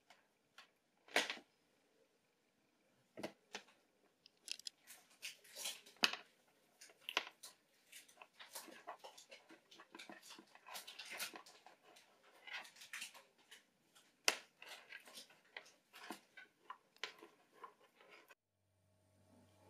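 Irregular soft rustles, scratches and clicks as a Bengal cat plays with and chews at a charger cable. A few sharper clicks stand out. The sounds stop abruptly near the end and a faint steady hum follows.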